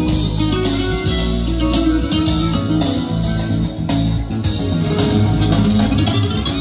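Guitar music with a steady bass line, played back through a vintage Scott 2055-A amplifier and Pioneer HPM-40 speakers.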